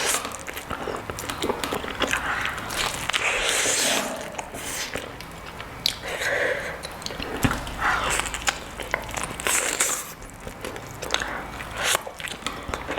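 Close-miked crunchy biting and chewing: irregular crackles and sharp cracks as food is bitten and chewed.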